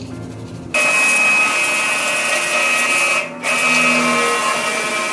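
Pressure washer starting up about a second in: a motor whine over the hiss of the water jet hitting a motorcycle engine. It cuts out briefly around three seconds in, then runs again.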